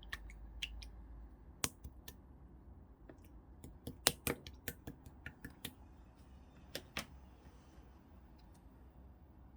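Clear slime mixed with red and orange colour being pressed and stretched by hand, giving off sharp, irregular clicking pops as air pockets burst, thickest about four to six seconds in.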